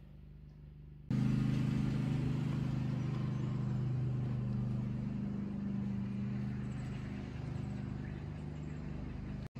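A steady low engine hum, like a vehicle running, starting suddenly about a second in and slowly fading.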